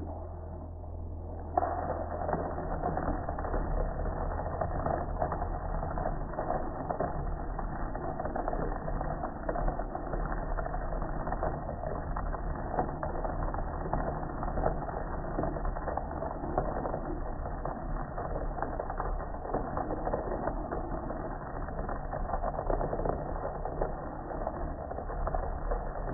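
A stream of water spraying onto a soaped-up gas grill, splashing and pattering on its lid and panels as the suds are rinsed off. The spray starts suddenly about a second and a half in and then runs steadily.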